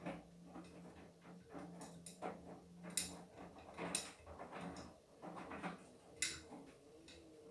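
Beko WTK104121W washing machine turning its drum mid-wash: a low motor hum that comes and goes, with irregular clicks and knocks from the tumbling load and a few sharper clicks about three, four and six seconds in.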